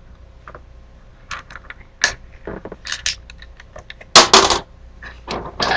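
Irregular small clicks and rattles of small hard objects being handled, with a louder cluster about four seconds in and another near the end.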